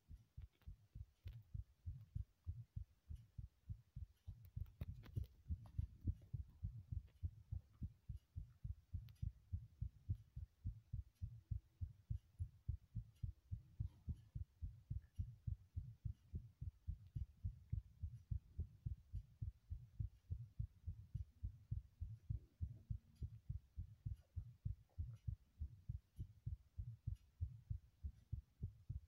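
Human heartbeat: a steady, regular rhythm of low thuds with no break.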